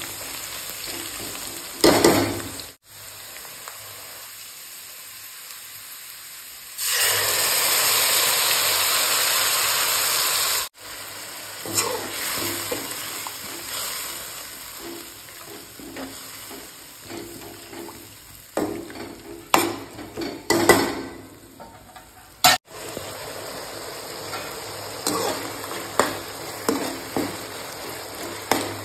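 Onions and whole spices frying in oil in a steel kadai, stirred with a metal spatula that scrapes and clinks against the pan. A loud, steady sizzle lasts about four seconds about a quarter of the way in, and several sharp scrapes come later.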